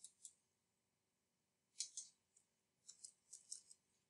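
Faint, crisp clicks of a computer mouse and keyboard in small clusters: a couple near the start, two more about two seconds in, then a quick run of several.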